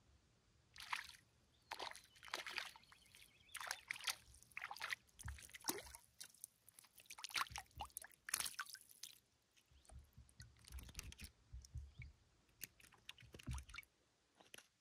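A small fish splashing at the surface as it is pulled in on a float rod and lifted out of the water, in a run of irregular splashes and sloshes that stop just before the end.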